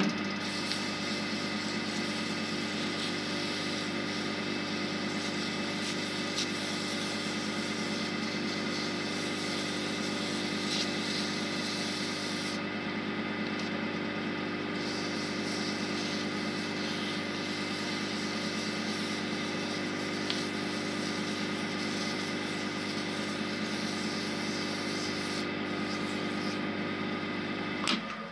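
Wood lathe motor running at steady speed, with 400-grit abrasive paper hissing against a pen blank's super glue finish as it spins. The hiss drops away briefly twice while the paper is lifted, and the motor cuts off near the end.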